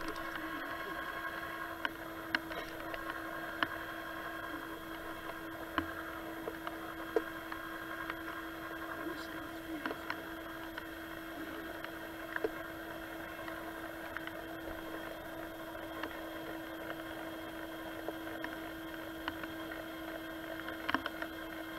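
A steady electric hum at one fixed pitch, with a few faint clicks and taps scattered through it.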